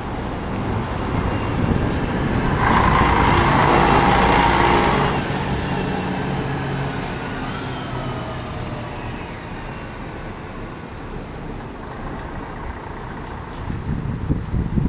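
City bus driving past close by, its engine running and tyres on the road; the sound swells to its loudest about three to five seconds in, then fades as a high whine falls in pitch. Traffic noise from further buses continues after.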